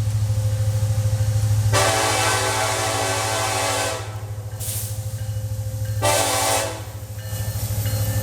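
Diesel locomotive horn blowing a chord of several tones: a long blast starting about two seconds in, then a shorter one a few seconds later. Under it runs the steady low drone of the locomotive's diesel engine.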